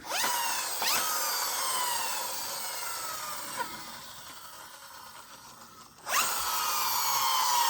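Toy helicopter whirring, its pitch falling as it winds down, then starting up again about six seconds in.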